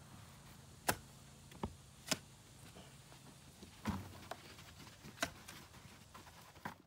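A shovel working sand onto filter fabric: scattered sharp clicks and knocks, with a heavier thud about four seconds in, over a low steady hum.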